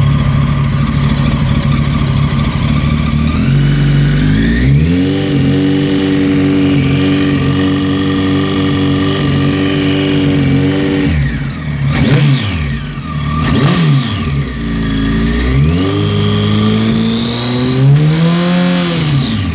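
Kawasaki ZX-14 inline-four engine idling, then revved up and held at raised revs for several seconds. It is blipped twice quickly, then revved and held again before dropping back toward idle. The owner wonders whether its sound is piston slap.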